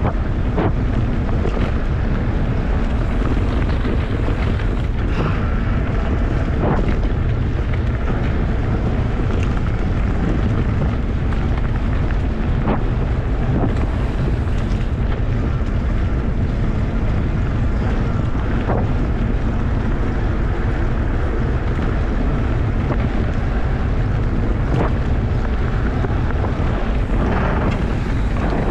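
Wind buffeting the microphone and bicycle tyres rumbling on a dirt trail at about 25–30 km/h, with scattered knocks and rattles from the bike over bumps.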